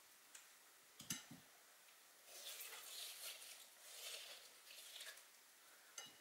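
Faint wet scraping of a metal melon baller scooping balls out of watermelon flesh, with a light click about a second in and another near the end.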